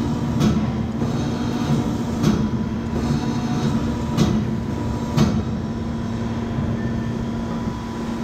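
Dintek 50 auger-flight bending machine running with a steady hum while a steel flight segment is bent in its die, with four sharp metallic clicks in the first five or so seconds.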